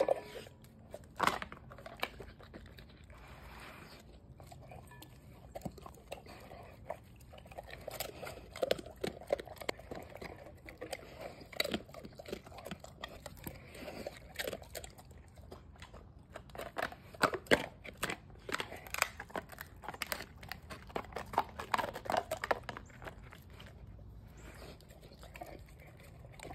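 A pit bull-type dog eating a raw meal from a metal bowl: wet chewing and crunching with many sharp clicks, busiest in the middle part.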